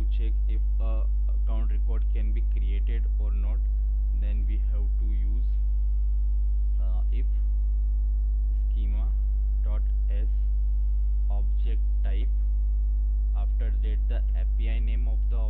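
Steady electrical mains hum: a loud low buzz with a ladder of overtones, picked up in the recording.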